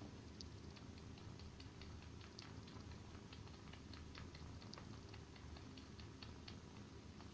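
Kitten suckling on a fluffy bathroom rug as if nursing, making a fast run of small wet sucking clicks, about five a second, over a low steady purr.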